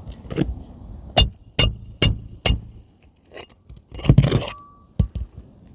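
Four quick hammer blows on a roofing nail through an asphalt shingle, each with a short metallic ring, followed about four seconds in by a brief scraping rustle.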